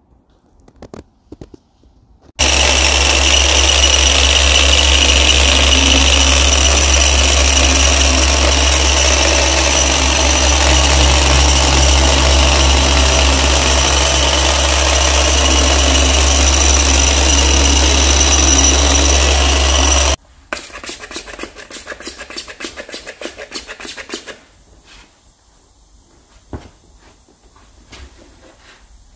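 Machine polisher with a foam pad running steadily on car door paint during paint correction. It starts abruptly a couple of seconds in and cuts off about eighteen seconds later. After it stops, a microfibre cloth gives a few seconds of quick rubbing strokes, then fainter wiping.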